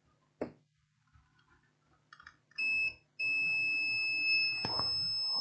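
Multimeter continuity beeper sounding as the probes make contact on the circuit board: one short beep, then after a brief gap a steady high beep lasting nearly three seconds, meaning the two probe points are connected. A light click of a probe touching down comes just under a second in.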